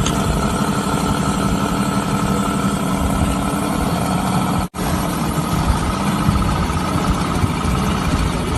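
Homemade 150cc V12 petrol engine of a radio-controlled Tiger tank model running steadily at idle. About halfway through, the sound drops out for an instant.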